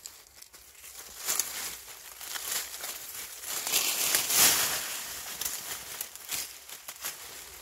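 Gloved hands scraping and digging through dry leaf litter and loose soil to dig out a wild ginseng root: crackling and rustling with many small clicks, loudest about four seconds in.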